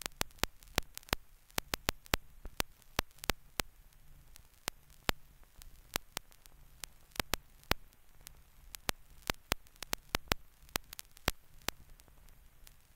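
Irregular clicks and pops over a faint hiss and a low hum that comes and goes: surface noise of an old film soundtrack carrying no programme sound.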